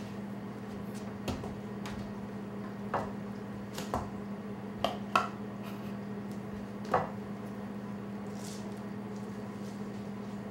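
Food preparation at a wooden table: raw meat being handled, with a cardboard canister, a shaker and a glass bowl picked up and set down. About seven light knocks and clinks come over the first seven seconds, the loudest near the middle, over a steady low hum.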